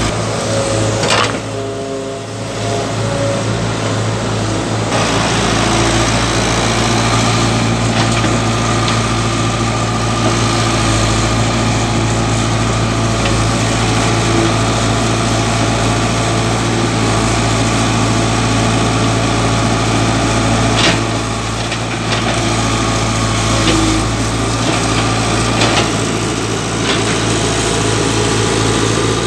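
Tata Hitachi EX70 excavator's diesel engine running steadily under working load, with a few sharp knocks as the steel bucket strikes rock, about a second in and twice more near the end.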